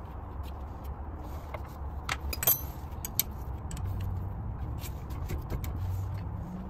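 A wrench and metal parts clinking and clicking irregularly around the wheel hub, with one louder ringing metallic clink about two and a half seconds in, over a low steady rumble.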